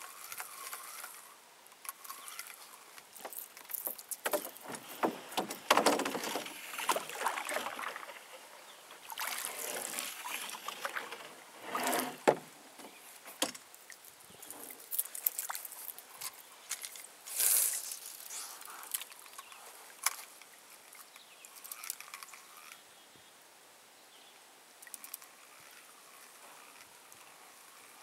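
Canoe being paddled: irregular paddle strokes splashing and sloshing in the water, with sharp knocks and clicks of gear against the hull, quieter near the end.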